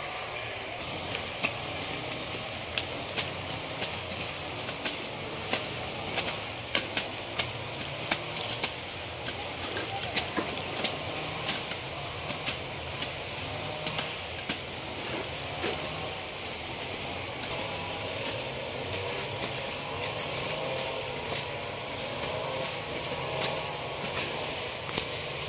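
A brush cutter's engine running steadily in the background, with irregular sharp chops of hand blades cutting through undergrowth, about one or two a second.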